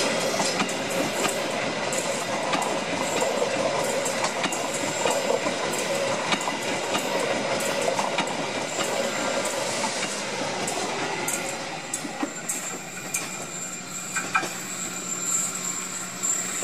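Stainless-steel passenger coaches rolling past at speed, their wheels clicking over the rail joints. About halfway through, as the train rounds a curve, a thin high wheel squeal sets in and grows while the rolling noise eases.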